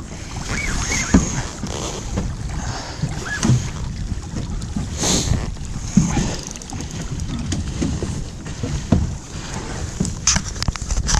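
Wind buffeting the microphone on a small fishing boat, with water moving around the hull. Several dull knocks come a few seconds apart, and there is a short hiss of water about halfway through and a quick run of clicks near the end.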